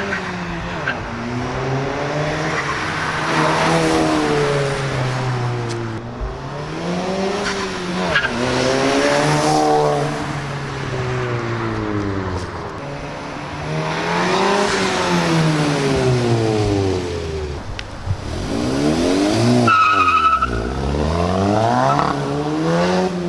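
Mk7 Volkswagen GTI's turbocharged 2.0-litre four-cylinder, fitted with a CTS high-flow downpipe, revving up and down. Its exhaust note rises and falls several times, each swell lasting a few seconds.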